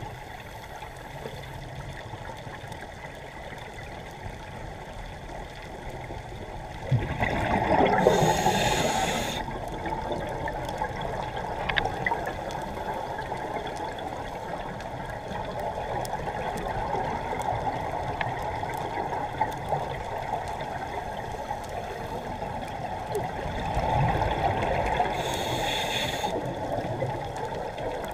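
Scuba diver's regulator underwater: two full breaths, each a hissing draw through the regulator followed by a rush of exhaled bubbles, about sixteen seconds apart, over a steady underwater hiss.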